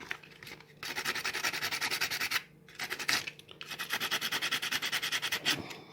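A small piece of sandpaper is rubbed quickly back and forth by hand over the cracked plastic nut of a cookie press, roughening its surface. The rapid rasping strokes come in three runs with short pauses between them.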